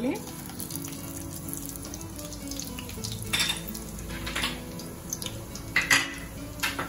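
Cumin seeds and whole spices (peppercorns, cardamom, cinnamon, cloves) sizzling in hot oil and ghee in a kadai, with louder crackles about three, four and six seconds in.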